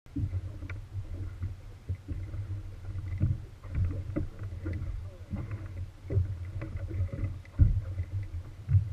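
Small inflatable boat on open sea: a low, steady motor rumble, with irregular knocks and slaps of waves against the hull. One louder knock comes near the end.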